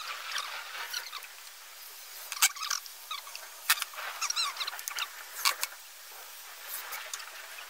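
High, squeaky chirping of small birds, with a few sharp clicks and taps as metal shelf brackets are handled against the wood.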